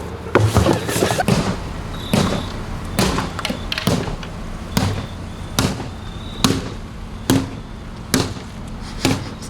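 A seesaw with a mini fridge on it banging as someone jumps on it: a steady series of about eleven heavy thumps, a little over one a second.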